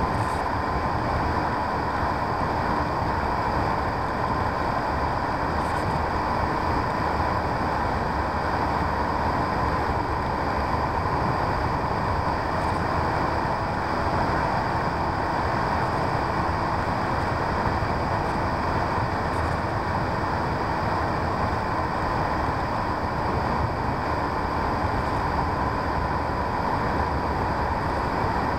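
Onboard sound of a radio-controlled P-51D Mustang model in flight: the motor and propeller whine steadily, the pitch sagging slightly and recovering, over a steady rush of wind past the airframe.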